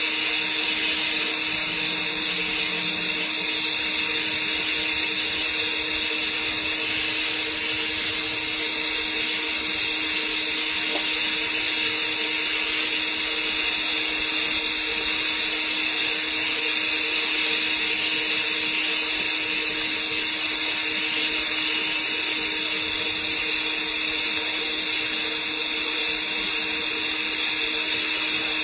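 Argon TIG welding arc laying a capping pass on pipe: a steady hiss with a faint constant hum under it.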